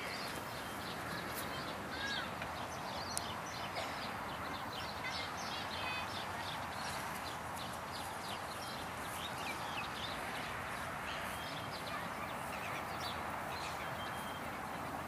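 Outdoor park ambience: many short bird chirps and calls scattered over a steady background hiss.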